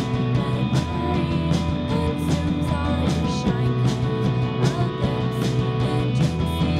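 Live indie rock band playing: electric guitars and electric bass over a steady drum beat.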